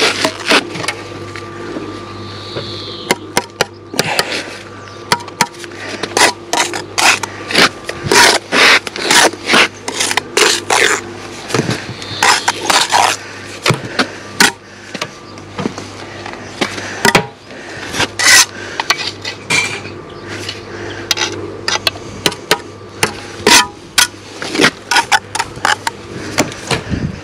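Bricklaying trowel work on concrete blocks and mortar: a quick, irregular run of sharp taps, knocks and scrapes as blocks are bedded and tapped down, over a steady hum.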